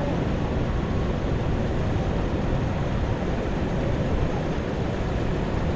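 Steady roar of Niagara Falls' cascading water, an even rushing noise heavy in the low end.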